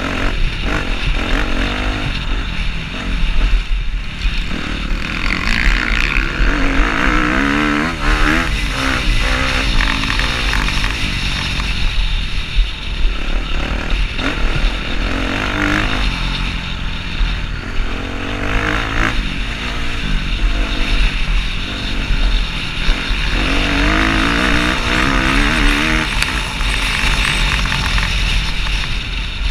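Kawasaki KX250F four-stroke single-cylinder dirt bike engine, heard onboard, revving up and dropping off again and again as it is ridden through the course.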